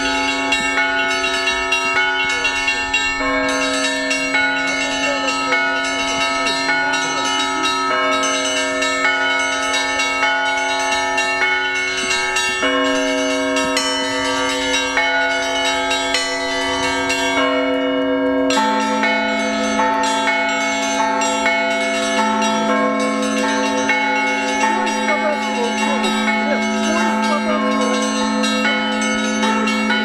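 Russian Orthodox church bells rung by hand from ropes tied to the clappers: a quick, continuous pattern on the small high bells over the ringing notes of larger bells. A little past halfway, a different, deeper bell takes over the low note.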